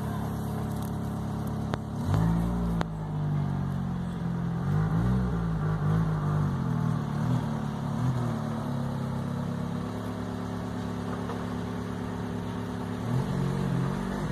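Car engine running, its pitch rising about two seconds in and wavering up and down as it revs and eases off, then holding steady before picking up again near the end.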